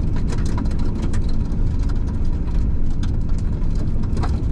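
Citroën van driving with a steady low rumble from engine and road, and irregular clicks and ticks of mud flicking off its snow tyres.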